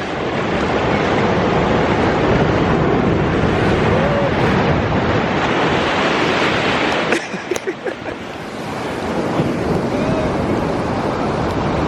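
Ocean surf washing and breaking on the shore, with wind rumbling on the microphone. The wash eases off for a moment about seven seconds in, then builds again.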